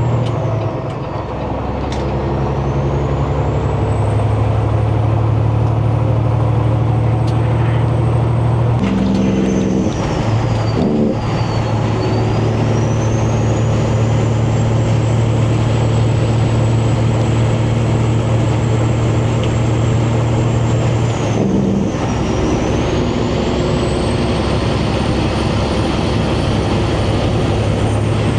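Semi-truck diesel engine pulling steadily under load, with a high turbo whistle above it. The engine note and the whistle drop away three times, about a second in, around ten seconds and around twenty-two seconds, as the truck changes gear, and the whistle climbs again after each shift.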